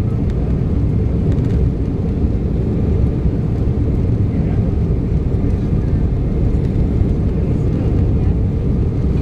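Steady low rumble in the passenger cabin of an Embraer 190 airliner moving on the runway, its GE CF34 turbofan engines and rolling wheels running without letup.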